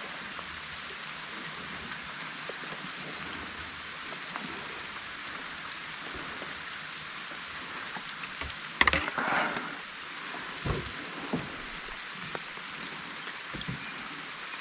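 Steady rush of moving river water around a kayak, with a few small knocks and one louder splash or scrape about nine seconds in.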